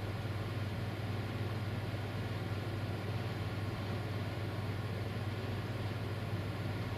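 Steady low hum and rumble of jet engines at taxi power, even and unchanging throughout, muffled as if heard through glass.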